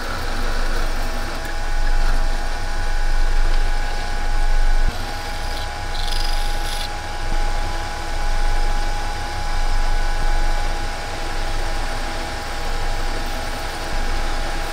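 Metal lathe running steadily while a tailstock-mounted drill cuts into the end of a spinning 6063 aluminium bar, a steady motor hum under the cutting noise. About five seconds in there is a short, higher-pitched hiss of cutting.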